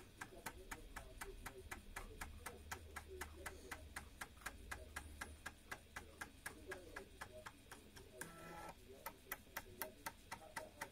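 BBC Micro 5.25-inch floppy drive's head stepper ticking the read/write head along one track at a time, about five even clicks a second, over a faint spindle-motor hum. This is the drive verifying a freshly formatted disk track by track.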